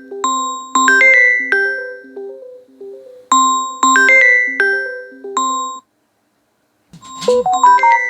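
Samsung Galaxy A53 default ringtone playing loud through the phone's speaker: a looping melody of bright, bell-like struck notes. About six seconds in it pauses for roughly a second, then a brief swoosh and the melody starts over.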